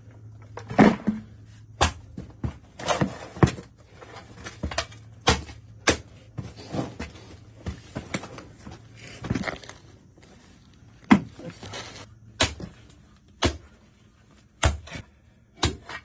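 A steel shovel scraping into and scooping loose dirt, gravel and broken concrete rubble from a hole dug in a concrete floor, giving a run of irregular sharp scrapes and knocks about once a second.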